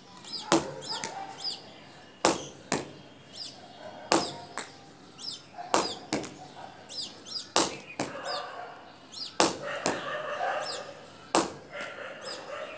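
A ball thrown against a wall and caught on the rebound: seven sharp knocks, about one every two seconds, most followed half a second later by a softer one. Small birds chirp in the background.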